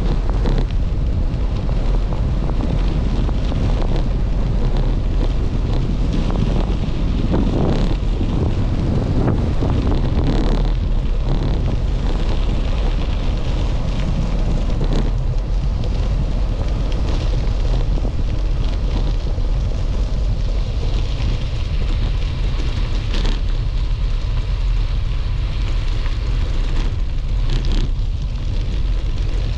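Wind buffeting the microphone of a moving camera: a steady, heavy low rumble with scattered short clicks and crackles over it.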